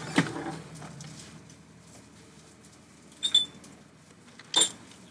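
White plastic ice bin being handled and lifted out of a freezer, full of ice cubes: a faint shuffle, then two short sharp clinks with a brief ring, about three and four and a half seconds in, the second the louder.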